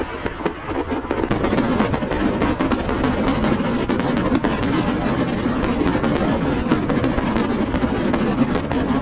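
A fireworks barrage, with rapid, dense popping and crackling that gets louder about a second in, mixed with music that has a drum beat.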